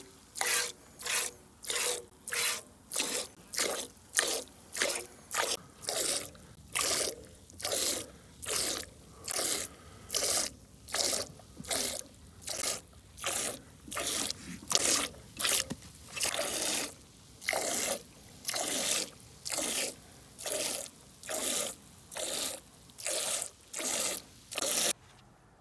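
A ewe being hand-milked into a metal pail: streams of milk squirting into the pail in a steady rhythm of about two squirts a second, stopping shortly before the end.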